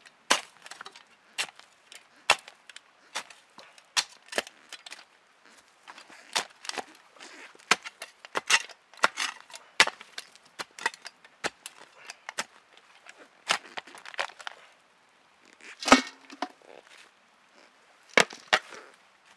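Small shovel chopping and digging into earth: irregular sharp strikes, often two or three a second with short pauses. The loudest strike comes about sixteen seconds in and rings briefly.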